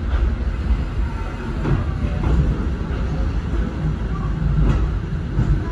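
KiHa 58 series diesel railcar heard from its cab while moving slowly: a steady low rumble of the diesel engine and running gear, with a few short clacks from the wheels over rail joints and points.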